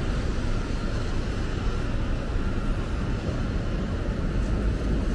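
Steady low rumble of city street noise with an even hiss over it, nothing standing out.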